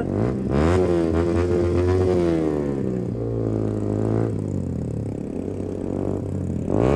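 Motorcycle engine with a loud exhaust revving while riding: its pitch climbs sharply three times, near the start, about four seconds in and just before the end, and falls away between.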